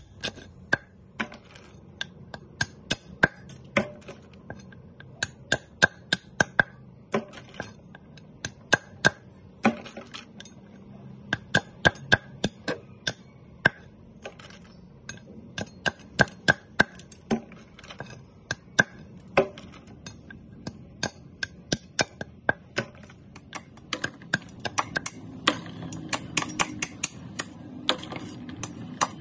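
Kitchen knife chopping the tips off snail shells on a wooden cutting board: irregular sharp knocks and shell cracks, several a second at times. Water splashes in a plastic basin near the end.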